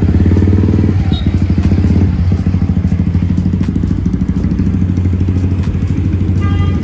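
Yamaha R15 V3's single-cylinder engine idling with a steady, rapid putter, a little softer from about two seconds in.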